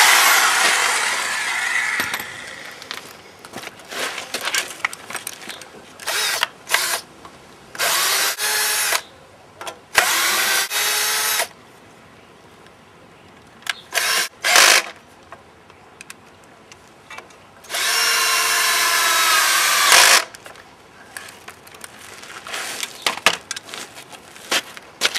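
Power drill run in short bursts against the end of a jarrah log, its motor pitch rising and falling as it bites, with a louder run dying away over the first two seconds and the longest burst near the end.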